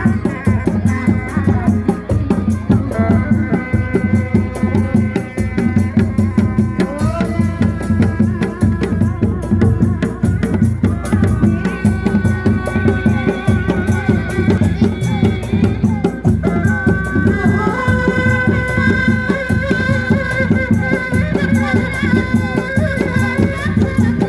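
Traditional Indonesian kuda lumping accompaniment music playing loudly: dense drumming and percussion under a melody of long held notes.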